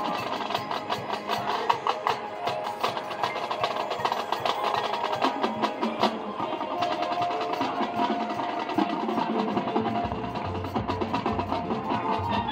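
High school marching band performing, a percussion-heavy passage of quick, sharp drum and woodblock-like hits, with held notes coming in partway through.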